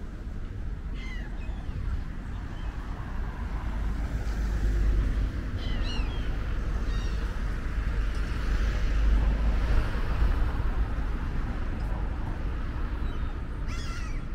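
Outdoor street ambience: a steady low rumble with a few short, high chirps about a second in, twice around six to seven seconds in, and once near the end.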